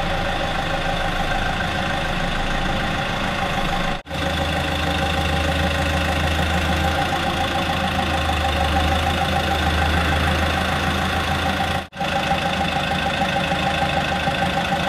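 A steady machine running, like an engine or shop motor idling, with an even, slightly wavering hum. It drops out abruptly twice and picks straight back up, with a stronger low hum between the breaks.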